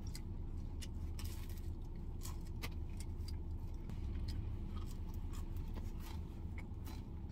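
Eating sounds: chewing, with scattered light clicks and ticks of wooden chopsticks picking in a cardboard pizza box, over a steady low hum inside the car.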